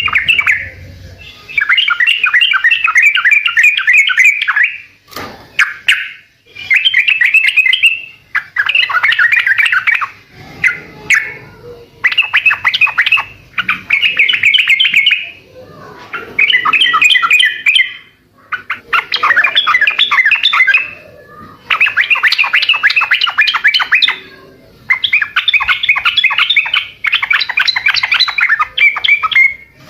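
Yellow-vented bulbul (trucukan) singing: a run of about ten loud, rapid chattering phrases, each a second or two long, separated by short pauses.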